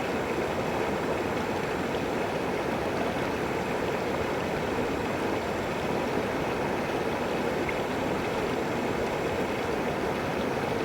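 River water flowing in a steady, even rush, with no distinct splashes or other events.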